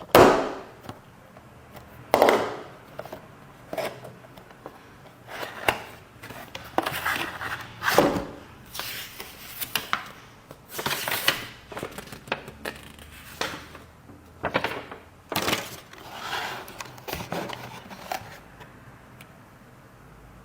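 Unboxing of a boxed slot car: irregular rustles, scrapes and clicks of the box and packaging being handled, stopping shortly before the end.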